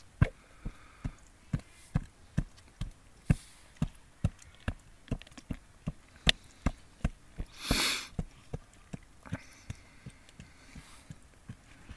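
Soft, evenly spaced knocks or thumps, a little over two a second, with one brief hissing rustle about eight seconds in.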